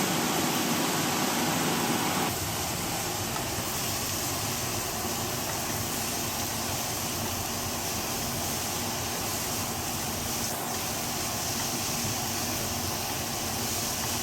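Steady hiss of grated beets and onions sizzling as they fry in a pan. It drops a little in level about two seconds in, then holds steady.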